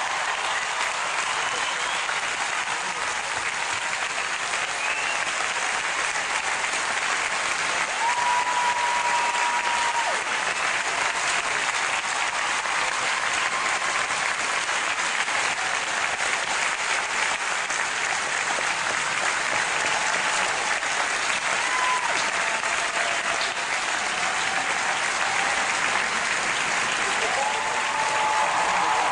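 Large arena audience applauding and cheering steadily after a song, with a few high held calls rising above the clapping about a third of the way in and again near the end.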